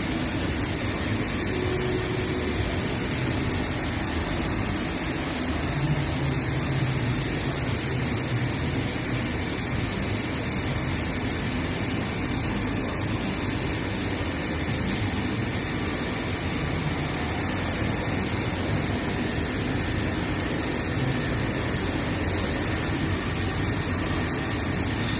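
1989 Chiron FZ22W machining centre running with a steady mechanical hum and hiss.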